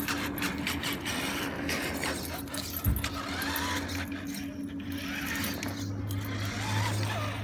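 Radio-controlled monster truck's motor and drivetrain whirring as it runs on concrete, with a steady hum and scattered clicks and scuffs.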